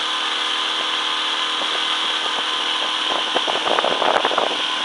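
Tiller-steered outboard motor on a small open boat running at speed, with a steady hum under a loud rush of wind and water. In the last second and a half a quick run of knocks and bumps comes in over it.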